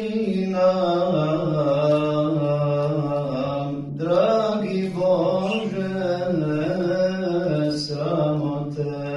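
A solo male voice chants an unaccompanied, melismatic Islamic religious recitation. He holds long notes with ornamented turns and breaks briefly for breath about four seconds in.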